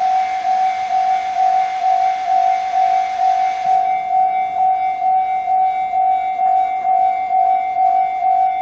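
Japanese railway level-crossing warning alarms ringing: an electronic bell tone repeating about twice a second. A steady hiss underneath stops abruptly about four seconds in.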